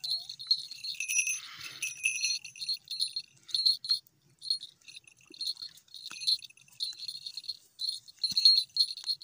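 Small metal falconry bell on a feeding goshawk jingling in short, irregular bursts as the hawk plucks and tears at a partridge kill.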